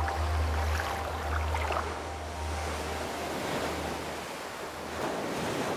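Surf breaking and washing over a rocky coral shore, a steady rush of waves with a swell near the end. A low rumble under it fades out about four seconds in.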